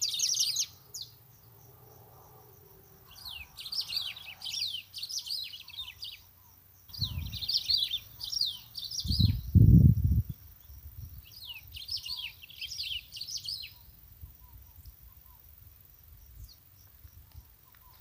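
A small songbird singing in a tree: four phrases of quick, high, falling notes with short pauses between. About seven seconds in, a low rumble swells and fades over some three seconds, louder than the song.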